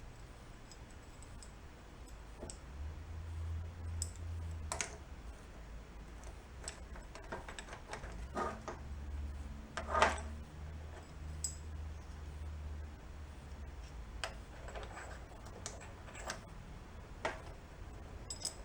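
Irregular small metal clicks and taps as 1962 Honda Cub 50 engine parts (shifter and clutch pieces) are handled and test-fitted into the crankcase, with one sharper knock about ten seconds in.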